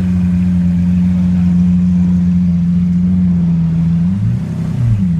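Lamborghini Aventador V12 engine running at a steady idle, its engine speed wavering briefly about four seconds in. The owner says the car was misfiring.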